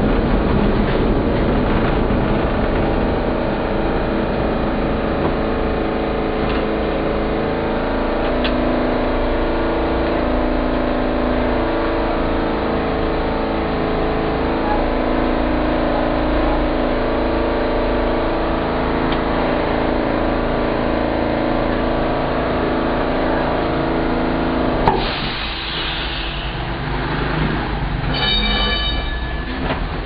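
Historic Lisbon tram heard from inside the car, running along the street with a steady rumble and motor hum. About five seconds before the end there is a sharp click and the running noise drops. Near the end a short high ringing tone sounds.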